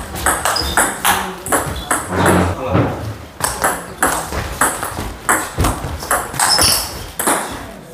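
Table tennis ball in a fast rally, clicking sharply off the rubber bats and the table several times a second.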